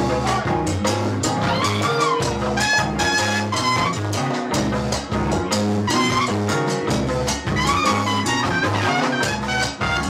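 Live band music: trumpets playing a melody over a steady groove of drum kit and bass, with baritone saxophone and percussion in the ensemble.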